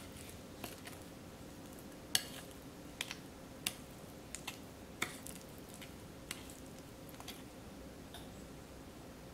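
Metal spoon clinking and scraping against ceramic bowls while butter and sugar are mixed: a dozen or so irregular sharp taps, the loudest about two seconds in and again around three to five seconds in.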